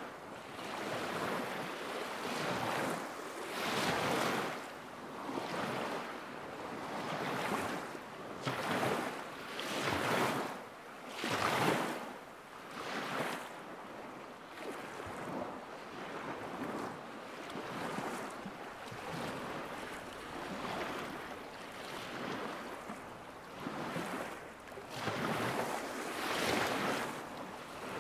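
Small lake waves lapping against the shore, a soft wash that swells and falls every second or two.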